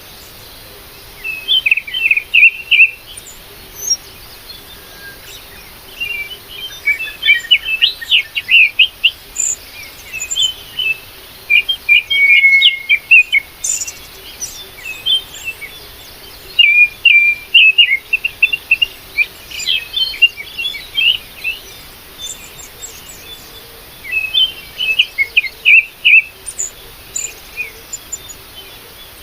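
Small songbirds chirping in quick, high-pitched phrases of rapid notes, each phrase a second or two long and repeated every few seconds.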